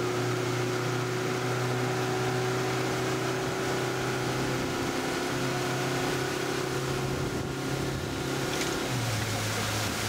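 An engine running steadily at idle, a low hum with steadier higher tones above it; its pitch shifts slightly about halfway through and again near the end.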